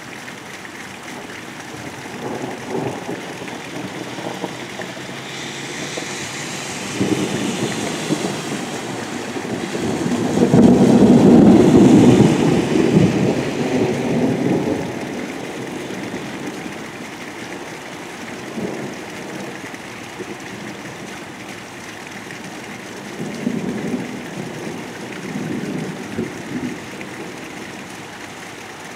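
Thunder rolling over steady heavy rain: a long low rumble builds about a quarter of the way in, is loudest just before the middle, then dies away, with a fainter rumble later on.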